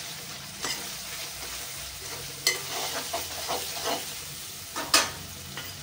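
Brinjal and tamarind gravy sizzling in a pan while a metal spoon stirs it, with several sharp knocks and scrapes of the spoon against the pan, the loudest knock about five seconds in.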